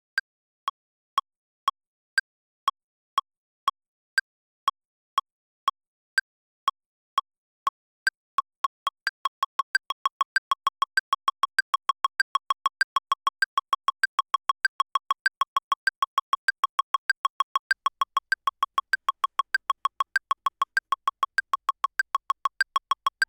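Ableton Live's metronome ticking about twice a second, with a higher-pitched accent click on every fourth beat. About eight seconds in the ticks come faster, four or five a second, as a second click pattern joins the first.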